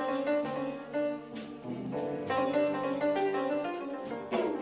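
Background music: an instrumental passage of a song, with piano.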